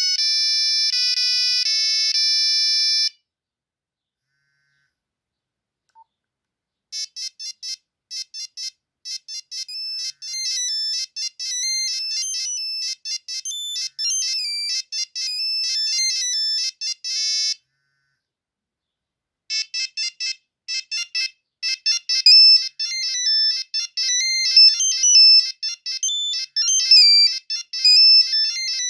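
Nokia 3310 ringtones: high-pitched electronic beeps playing a single-line melody. One tune stops about three seconds in; after a few seconds of silence a quick melody of short beeps plays, breaks off briefly, and starts over.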